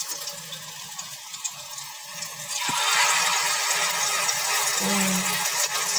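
Hot oil sizzling steadily as a thin layer of ukoy batter (shrimp and kangkong fritter) fries in the pan. The sizzle grows louder about halfway through, just after a single light tap.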